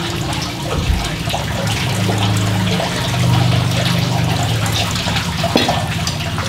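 Steady trickling and splashing of running water from a garden water feature, over a low steady hum. A single knock comes a little over five seconds in as the glass sauce bottle is set down on the table.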